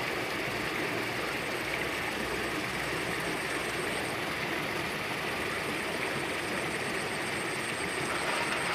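Steady rushing of a shallow river running over rocks, an even noise with no break.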